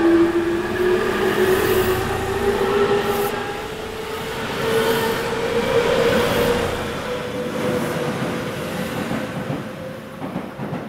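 Tobu Railway 9050 series electric train pulling away, its GTO-VVVF inverter and three-phase induction traction motors whining in a tone that rises with speed and then levels off, over wheels rumbling on the rail.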